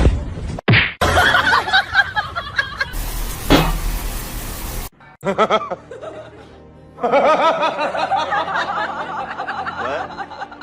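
People laughing, with music, broken by several abrupt cuts from one clip to the next.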